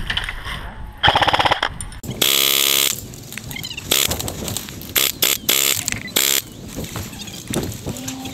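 Airsoft electric guns firing several short full-auto bursts: a rapid even rattle about a second in, then the loudest, a buzzing burst of under a second about two seconds in, and further short bursts over the next few seconds.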